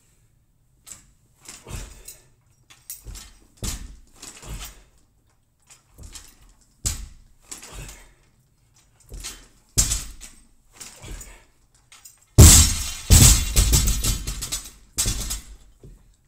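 A loaded barbell worked through ground-to-overhead lifts: a run of separate knocks and clanks from the bar and its bumper plates, then, about twelve seconds in, a much louder crash as the bar hits the floor, the plates bouncing and rattling for two to three seconds.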